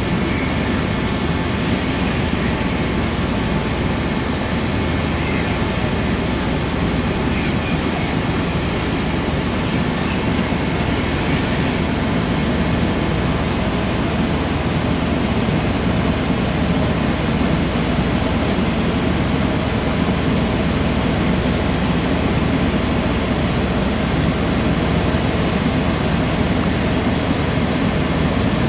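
Fire apparatus engines running in a steady, unbroken drone, with a faint high whine over it.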